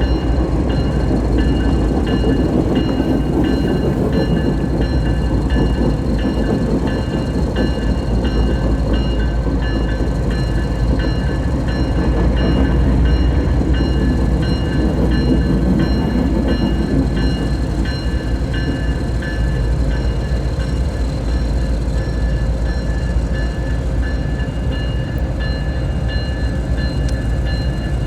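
Diesel-hauled train rumbling steadily, with a bell ringing at an even pace throughout.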